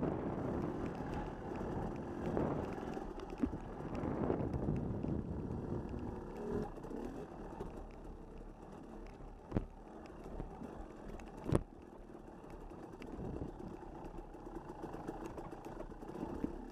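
A vehicle running over rough ground, a continuous rumble with rattling that eases off somewhat after the first few seconds. Three sharp knocks come through it, the loudest about two-thirds of the way in.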